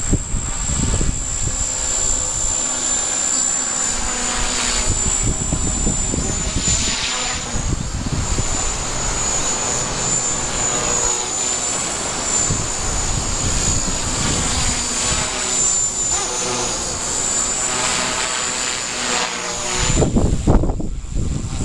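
Strong wind blowing hard as a steady rushing noise with a thin, high whistle running through it; gusts buffet the microphone near the end.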